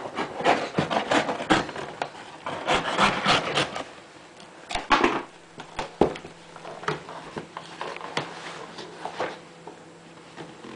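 Cardboard box being opened by hand: flaps scraping and knocking, and clear plastic wrapping crinkling as it is pulled. The sound comes as a quick run of clicks and rustles, busiest in the first half and sparser later.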